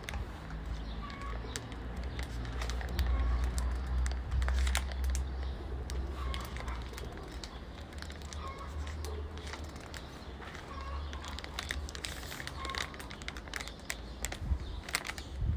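Rustling and crackling of dry grass and weeds as two kittens wrestle and roll on a wooden board, over a steady low rumble. Faint short chirps come every second or two.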